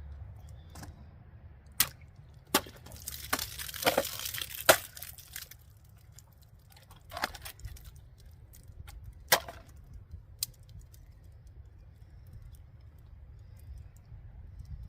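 Small pocketknife blade being struck and dragged against a test material. There are a few sharp knocks, a dense stretch of scraping and tearing from about three to five seconds in, then scattered single clicks.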